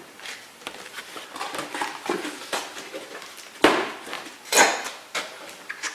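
Handling noise as the soldering station's main unit is unpacked: irregular rustling and clicking of the packaging and unit, with two louder knocks about three and a half and four and a half seconds in.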